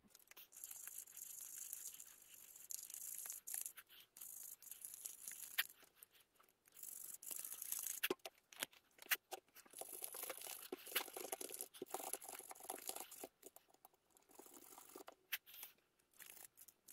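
Rag scrubbing and rubbing over the metal body of an EGR valve being cleaned: irregular scratchy rustling with many small clicks and knocks.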